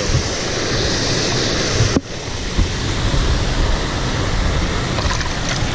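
Steady rushing noise of wind buffeting the microphone mixed with moving pond water, with a short break about two seconds in.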